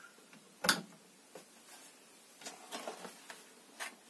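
Chainsaw guide bar being handled and fitted onto the saw's bar studs: one sharp metal knock well under a second in, then a few lighter clicks and handling noises.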